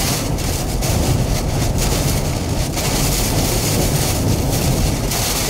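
Hurricane eyewall winds and driving rain buffeting a vehicle, heard from inside it: a loud, steady rushing noise with a heavy low rumble that swells and eases slightly with the gusts.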